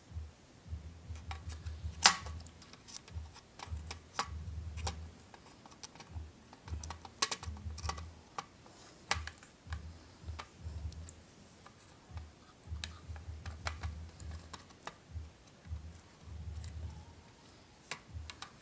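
Irregular small clicks and light knocks of RAM modules and memory slot parts being handled and seated in a Mac Pro, one sharper click about two seconds in, with patches of low handling rumble.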